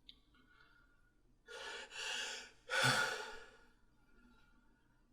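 A person building up to a sneeze: two quick gasping breaths in, then a louder, short breathy exhale with a bit of voice in it, about halfway through.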